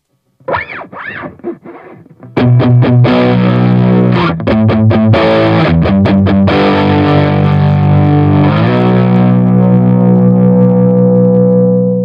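Distorted electric guitar, a Squier Affinity Jazzmaster played through a Fender Champion 50XL amp. A few quieter notes that sweep up and down in tone come first. From about two seconds in, loud chords are strummed and left ringing, with a chord change near the end.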